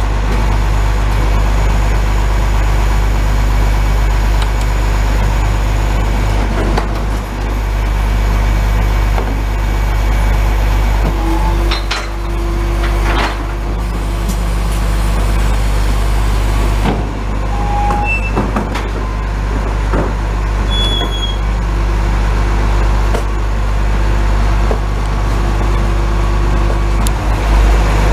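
Rear-loading garbage truck, a 2017 Dennis Elite 2 with an Olympus body, running steadily on its diesel engine while its hydraulic bin lifter empties large wheelie bins into the hopper. There are several knocks and a few short steady tones as the bins are lifted and tipped.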